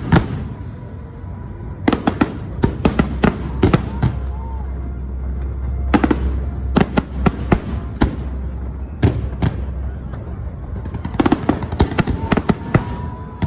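Aerial fireworks shells bursting in rapid clusters of sharp bangs, about five volleys in a row, over a low rumble.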